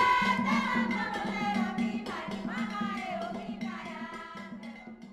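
Music: singing with drums over a steady low drone, fading out gradually toward the end.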